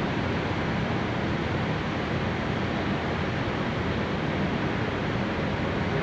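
Steady rushing wind and sea noise on a ferry's open deck, with a faint low hum from the ship's engines underneath.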